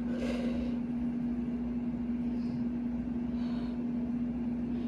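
Very loud air conditioning unit running: a steady hum with one constant tone and a low rumble underneath. A few faint short breathy hisses come over it near the start and around the middle.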